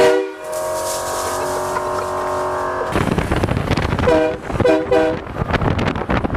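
Truck-mounted train horn sounding one long, loud multi-tone chord for about three seconds, then two short toots about a second later. A rushing noise fills the gaps between the toots.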